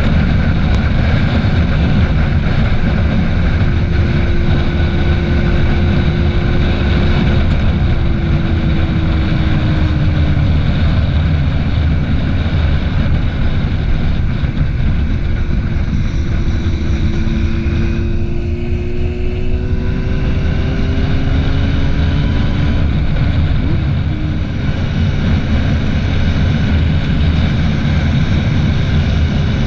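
Yamaha FZ6 inline-four motorcycle engine running at road speed under a heavy rush of wind on the microphone. The engine note glides down about a third of the way in as the bike slows, then rises and falls again through the second half.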